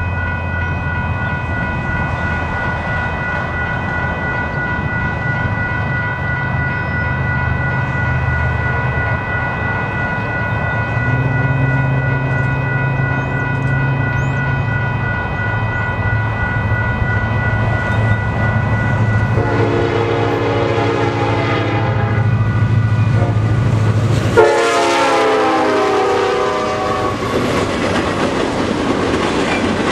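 Union Pacific freight train led by an SD70ACe approaching: a steady diesel engine rumble, with a steady high-pitched ringing through the first two-thirds. The air horn sounds twice, about 20 and 25 seconds in, its pitch dropping on the second blast as the locomotives pass. The freight cars' wheels then clatter by on the rails.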